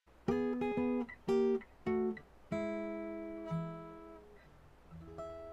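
Outro music on acoustic guitar: four short strummed chords, then a chord left to ring and fade, and another chord struck near the end.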